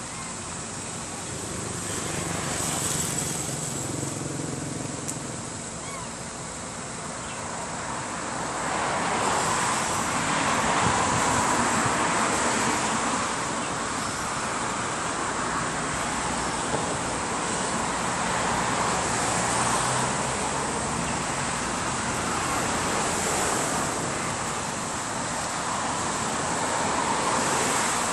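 Road traffic noise from passing vehicles: a steady rush that swells louder about a third of the way in, then eases off and rises again, under a constant high hiss.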